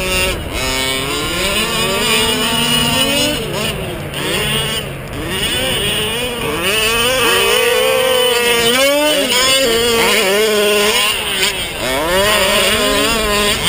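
Small two-stroke petrol engines of 1/5-scale RC trucks revving up and down as they race, a buzzing whine that rises and falls again and again, with several engines overlapping at times.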